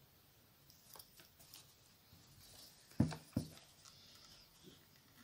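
Faint rustling and small clicks of a metal crochet hook working black yarn through single crochet stitches, with two brief louder bumps a third of a second apart about three seconds in.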